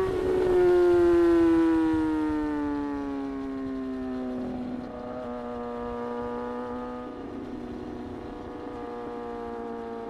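Kawasaki ZX-6R 636's inline-four engine heard from the rider's seat, its revs falling steadily for about four seconds as the bike slows, then holding at a lower, quieter note. Wind rush runs underneath.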